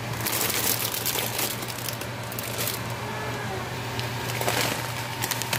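Plastic noodle packaging crinkling as the bags are handled, for about two and a half seconds, with a shorter burst of crinkling or crackling near the end.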